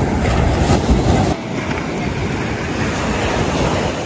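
Surf on the beach with wind buffeting the microphone: a loud, steady rushing rumble that eases slightly about a second and a half in.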